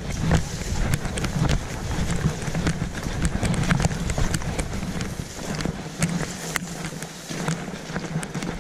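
Footsteps of a person in chest waders trudging through marsh, a run of irregular steps with the low rush of wind on the microphone.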